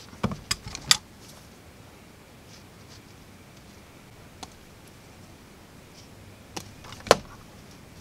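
Sharp metallic clicks from hand tools working on a cable's wires: side cutters snipping and tools being set down. There are several quick clicks in the first second, one faint click in the middle, and two near the end, the last of them the loudest.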